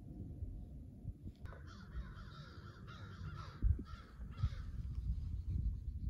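Crow cawing: a run of about six caws roughly half a second apart, starting about a second and a half in, over a low steady rumble.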